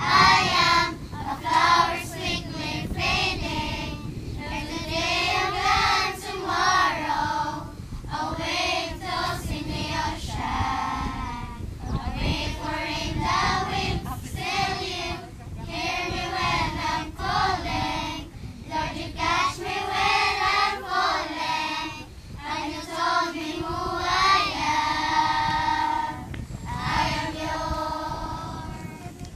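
A group of children singing together in chorus, phrase after phrase with short breaks between lines.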